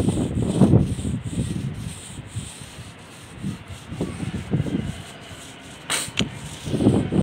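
Paint roller loaded with thick red waterproofing roof coating being rolled back and forth over a rough concrete roof, a wet rasping stroke roughly once a second. A brief sharp click about six seconds in.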